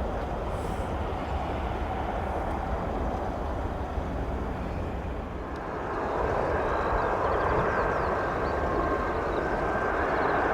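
Jet airliner engines running, a steady rush that grows louder about six seconds in, when a high steady whine joins it.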